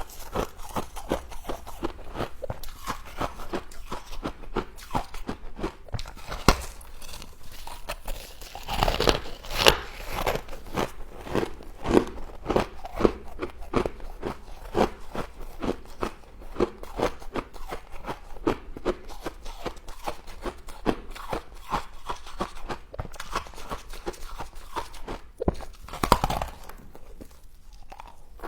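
Close-up crunching and chewing of frost: many rapid, crackly bites in a steady stream, with louder crunches about a third of the way in and near the end.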